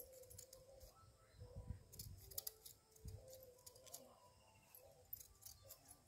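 Near silence with a few faint, scattered clicks, clustered about a second and a half in and again near the end.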